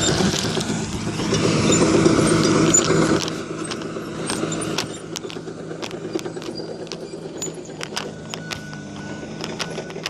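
A nearby engine running steadily, louder for the first three seconds and then dropping back, with scattered light clicks and rattles throughout.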